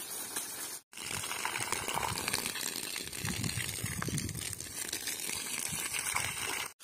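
Water from a garden hose splashing onto leaves and pouring over wet soil, a steady splashing hiss that cuts out for an instant about a second in.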